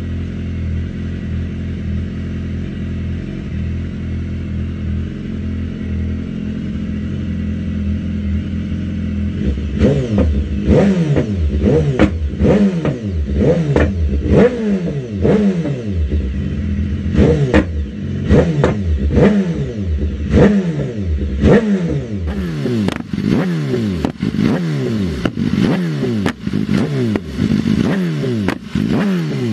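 Sportbike engine idling steadily. After about nine seconds it gives way to inline-four sportbikes, BMW S1000RR-type, revved hard again and again through aftermarket Arrow exhausts, each rev rising and dropping quickly with sharp pops among them.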